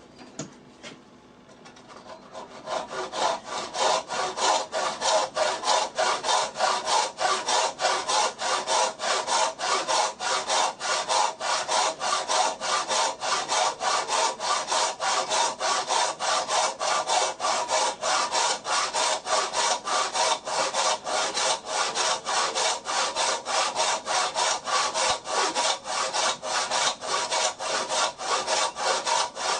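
Hand saw cutting through wood in steady back-and-forth strokes, about three a second, sawing the shoulder of a tenon. The sawing starts about two seconds in and stops abruptly at the end.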